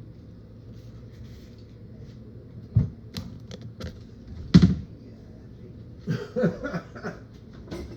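Irregular clicks and knocks: a few single ones, the loudest about halfway through, then a quick run of them near the end.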